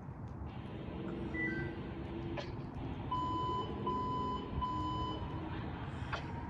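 A fire engine's backup alarm beeps three times over a low, steady engine rumble: the apparatus is reversing into position.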